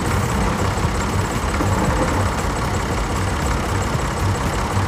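An engine running steadily at idle, with an irregular low chug under an even hiss.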